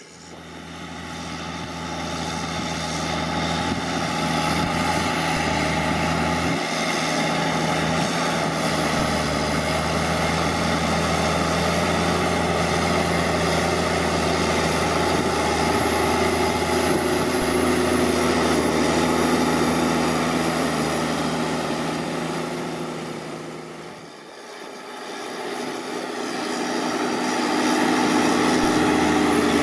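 CAT C9 ACERT 8.8-litre turbocharged six-cylinder diesel of a Challenger MT765B tracked tractor running steadily under ploughing load at around 1650–1700 rpm. The drone fades in at the start, drops away briefly about three-quarters of the way through, then comes back louder.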